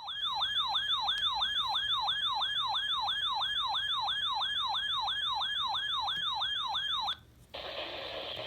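Electronic siren-style alert tone, a rapid yelp of about three sharply falling sweeps a second, that cuts off suddenly about seven seconds in. A steady hiss follows.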